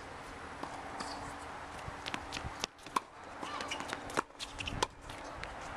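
Tennis balls struck by rackets and bouncing on a hard court: a handful of sharp, separate pops in the second half. Shoes scuff on the court between them.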